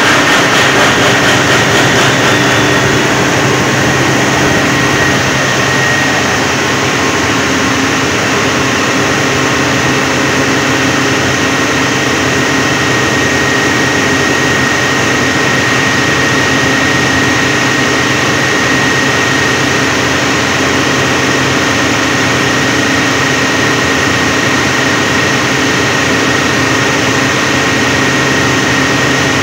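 SDMO standby generator set's engine running off-load at its rated 1500 rpm, just after starting. It is a little louder in the first couple of seconds, then settles to an even run with a steady high whine over the engine note.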